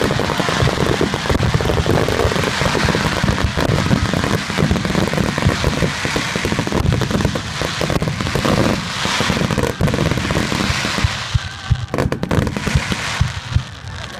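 Aerial fireworks bursting in a dense barrage of rapid bangs and crackling. The barrage thins out in the last few seconds to a handful of separate booms.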